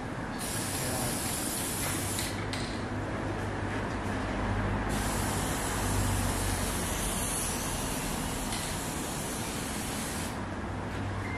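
Aerosol can of Sika underbody coating spraying in long hissing bursts: one of about two seconds near the start, a weaker stretch, then a longer burst of about five seconds from about five seconds in. A steady low hum runs underneath.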